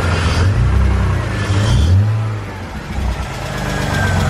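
BMW E46 engine revved for about two seconds, then dropping back to a steady idle, with a knock from the bottom end typical of rod knock, which the owners put down to a probable spun bearing.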